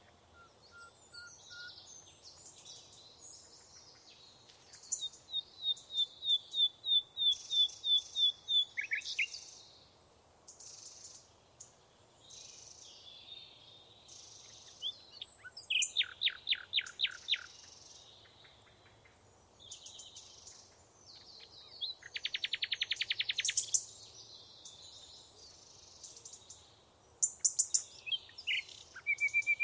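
Several songbirds singing and calling in turn. There is a run of about a dozen clear, evenly paced notes, a few fast rattling trills, and scattered softer chirps between them, over a faint steady outdoor hiss.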